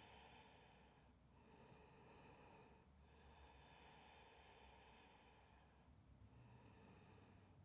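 Near silence with faint, slow breathing in long, even stretches.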